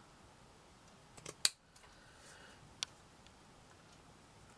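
Scissors snipping through the border of a crocheted lace doily: a handful of separate short snips, the loudest about one and a half seconds in and another near three seconds.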